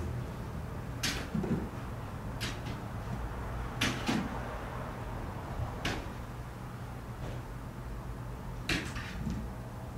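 A cat leaping at a laser dot: its paws bump against a wall and it lands on the floor, about five sharp knocks, some with a dull thud, spread out over several seconds.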